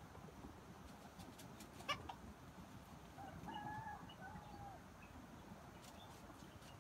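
Red junglefowl rooster giving a single short, faint crow in a few broken segments about three and a half seconds in. Before it, about two seconds in, comes a single sharp click.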